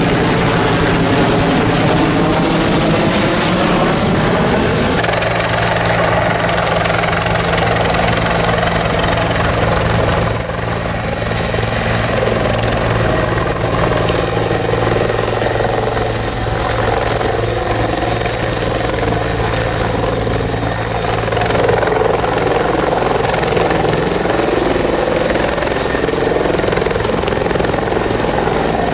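A two-bladed Bell UH-1H Huey II helicopter passes overhead, its rotor sound sweeping as it goes by. Then, after a cut, a Bell 412EP helicopter hovers low and lands close by, its rotor and turbines running steadily with a low hum and a steady high-pitched whine.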